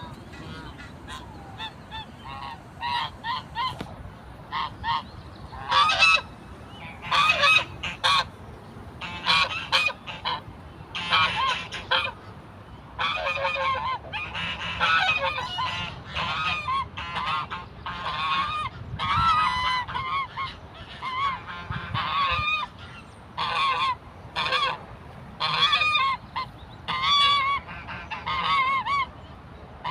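Geese honking over and over in short, harsh calls, several overlapping at times.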